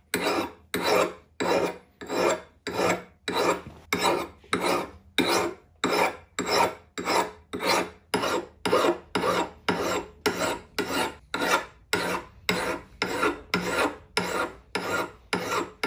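Hand file rasping across the steel edge of a Norlund Hudson Bay hatchet head, sharpening it in steady, even strokes about two a second.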